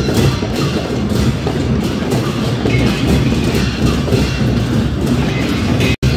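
Traditional Newar procession music: percussion playing a steady, repeating beat. It cuts out for an instant near the end.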